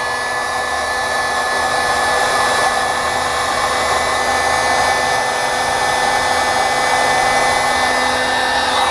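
Handheld electric heat gun running steadily, blowing hot air onto heat-shrink crimp connectors: a steady fan-motor whine over the rush of air.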